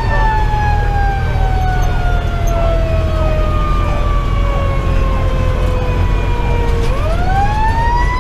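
Federal Q2B mechanical siren coasting down in a long, slow falling wail, then spun back up in a quick rising whine about seven seconds in. Under it, the fire engine's Detroit Series 60 diesel runs as a steady low rumble, heard from inside the cab.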